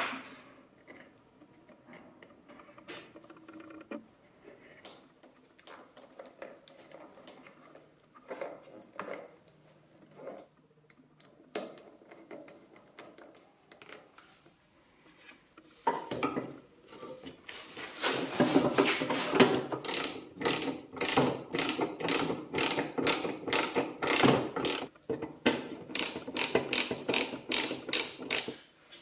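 Car bumper parts being handled with scattered soft knocks and rubbing. About halfway through this gives way to a long run of loud, even ratchet clicks, about three a second, with short pauses, from a ratchet wrench being worked.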